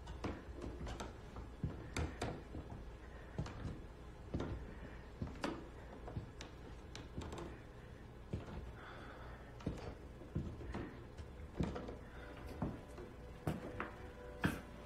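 Footsteps and creaks on bare wooden floorboards in a quiet room: irregular soft taps, one or two a second. A low sustained music tone creeps in near the end.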